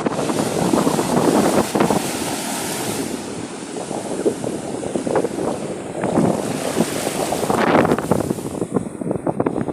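Sea waves washing and breaking on the shore in a steady rush, surging louder about a second in and again near the end, with wind buffeting the microphone.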